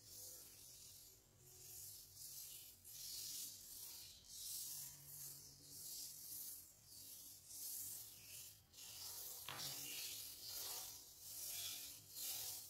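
Coffee scrub of barako coffee grounds and brown sugar rubbed back and forth over bare skin by hand. Faint gritty rasping strokes, about one a second.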